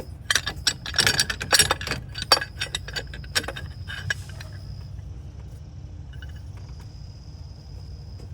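Hand tools and bolts clinking and rattling: a quick run of sharp metallic clicks and clinks for the first three seconds or so, then a few scattered ones, over a steady low hum.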